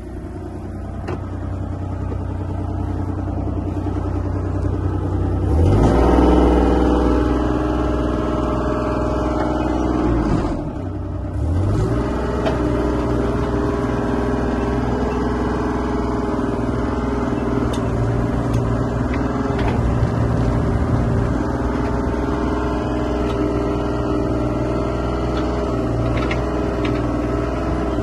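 Kubota diesel engine of a 2016 Bobcat E32 mini excavator running. It starts low, speeds up about five seconds in, drops back briefly around ten seconds in, then picks up again and runs steadily at the higher speed.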